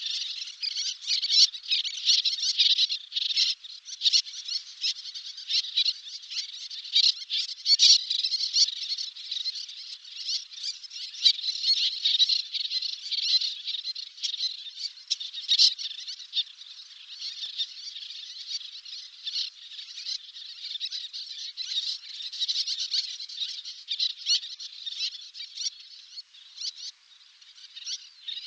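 Terns calling: many short, sharp, high-pitched calls overlapping in a continuous chattering chorus.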